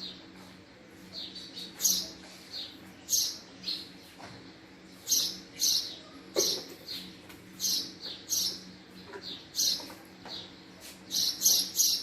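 Male house sparrow chirping: a string of short, sharp chirps, about one or two a second, coming faster and louder near the end.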